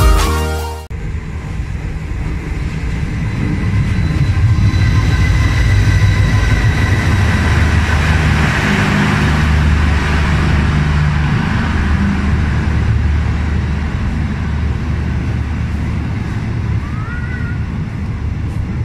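KTM passenger train rolling past a station platform: a steady loud rumble of wheels on rail with a low drone, swelling over the first few seconds and easing slightly later.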